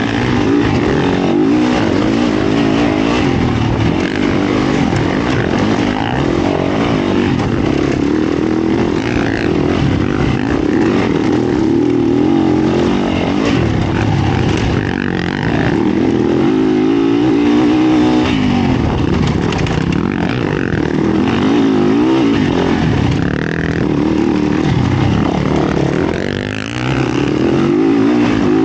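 Yamaha YZ450F dirt bike's four-stroke single-cylinder engine running hard, its pitch rising and falling continuously as the throttle opens and closes, with a short drop in revs near the end.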